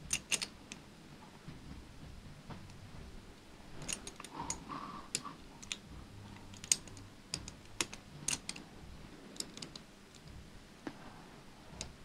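Metal pieces of a cast puzzle padlock clicking and tapping against each other as they are turned and slid in the hands. The clicks are light and irregular and come in small clusters.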